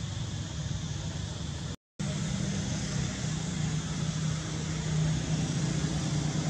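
Steady low hum of a running motor vehicle over a constant background hiss. The sound drops out for a moment just before two seconds in.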